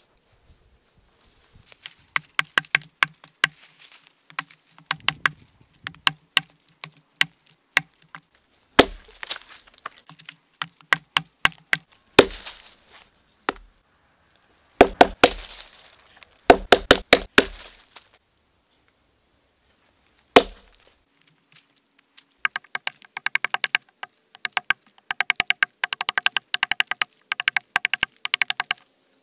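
Hand-forged tomahawk chopping into a log: a long series of sharp strikes of steel biting into wood, coming in runs, quickest near the end.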